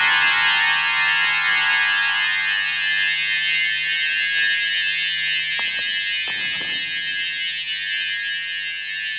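Shrill, sustained electronic drone from an animated film's soundtrack: a dense cluster of high tones held steady and slowly fading, its lower part dropping away about two seconds in. A few faint knocks sound around the middle.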